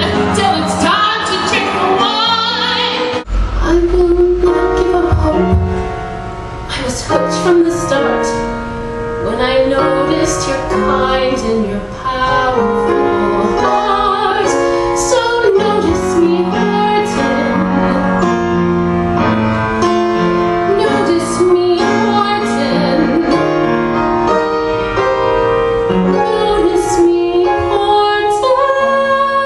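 A woman singing a solo song with instrumental accompaniment; a deep bass part comes in about three seconds in.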